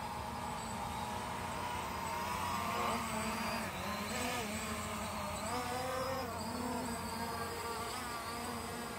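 ZLLRC SG906 Pro quadcopter's propellers buzzing in flight as it skims low and then climbs. The pitch wavers up and down with the throttle, and it is loudest about three seconds in.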